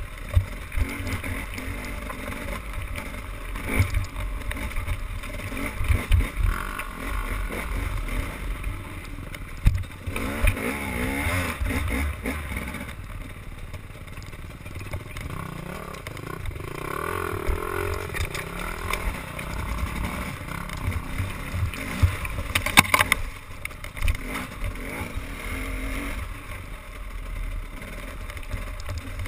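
Motorboat engine running on the water, with wind buffeting the microphone in irregular low thumps.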